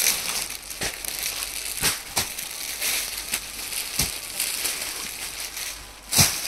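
Clear plastic packaging crinkling and rustling as it is handled and a folded suit is pulled out of its bag, with several sharp crackles, the loudest near the end.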